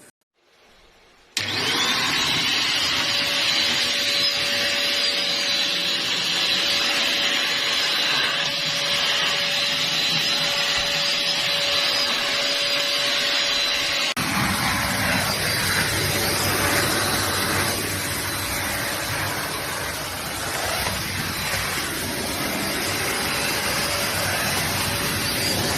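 Deerma DX115C handheld vacuum cleaner switching on about a second in and running steadily with a high whine. About halfway through its sound changes abruptly, the whine dropping away and a lower, rougher rumble taking over.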